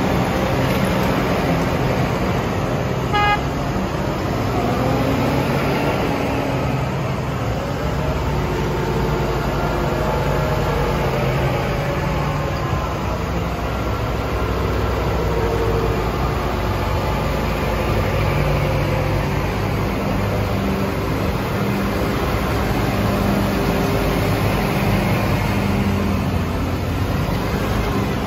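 Large modern diesel tractors, including New Holland and Valtra models, running steadily as they drive slowly past in a line, their engine hum mixed with tyre noise on a wet road. A short horn toot about three seconds in.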